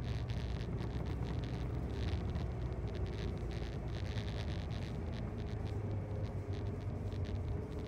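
Car cabin noise while driving: a steady low engine hum with road and tyre noise.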